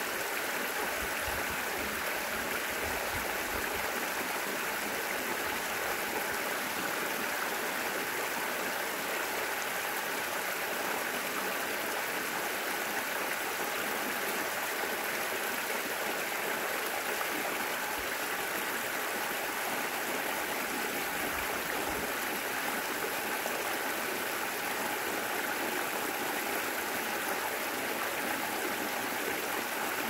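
Water flowing steadily over a small spillway and splashing into the shallow creek below, a constant even rush.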